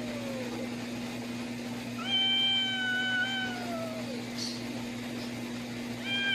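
Cat yowling at a dog: long, drawn-out wavering calls that sag in pitch as they end. One yowl fades out just after the start, a second comes about two seconds in and lasts about two seconds, and a third begins near the end.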